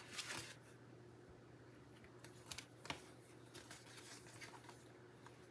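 Faint handling sounds: a few light clicks and rustles of a plastic stamp-set case and its thin sheets being moved, over a low steady hum.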